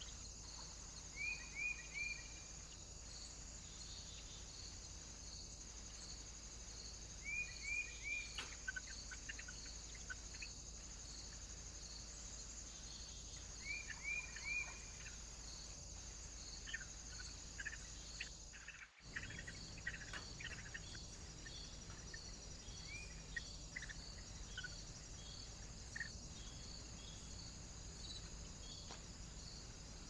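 Small woodland birds calling in short runs of three quick, falling notes, four times, with scattered single notes, over a steady, evenly pulsed high chirring of insects.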